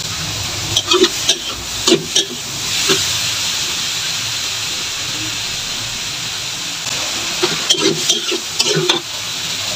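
Cucumber slices and tomato sizzling steadily in oil in a stainless steel wok. A metal spatula scrapes and clinks against the wok about a second in, and again near the end as the vegetables are stirred.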